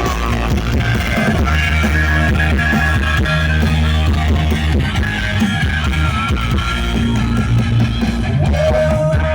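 Rock music with guitar and singing, played loud through a PA rig of OHM TRS 2/18 bass cabinets and 2/12 tops, with a heavy, dominant low bass.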